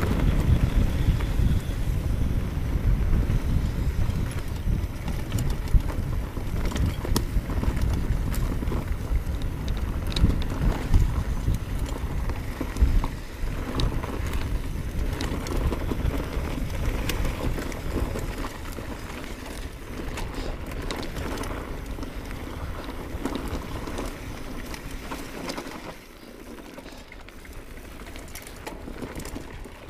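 Orbea Alma hardtail mountain bike riding along a dirt forest trail: tyres rolling over dirt with frequent sharp clicks and rattles from the bike, and a deep rush of wind on the microphone. It gets quieter over the second half, with a further drop near the end.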